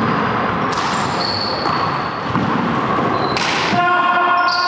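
Small rubber ball smacking the wall and wooden floor of an enclosed court: two sharp hits a little under three seconds apart, ringing in the hall. Near the end, a brief high squeak like sneakers on the wooden floor.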